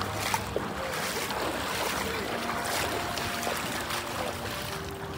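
Shallow river water rushing and splashing around legs wading through it, with wind buffeting the microphone. Two brief knocks about half a second in, and faint distant voices.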